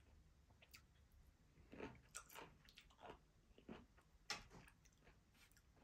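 Faint crunching as a person bites into and chews pickled vegetables, a handful of short crunches between about two and five seconds in.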